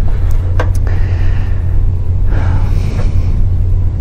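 Steady low hum through the microphone and sound system, with a couple of faint clicks about half a second in and a soft breathy sound past the middle.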